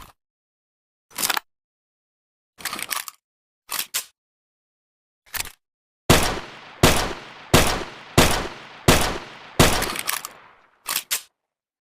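Homemade M1911 pistol sound effect: a few short metallic handling clicks, then six shots in a steady string about 0.7 s apart, each with a fading tail, then two quick clicks.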